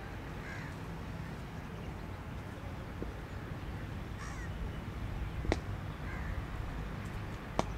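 A few short bird calls over a steady low outdoor rumble, with two sharp knocks about five and a half and seven and a half seconds in.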